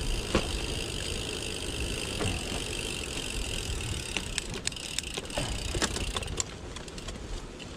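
Gravel bike rolling along a gravel track: a steady tyre rumble with scattered sharp clicks and rattles from stones and the bike.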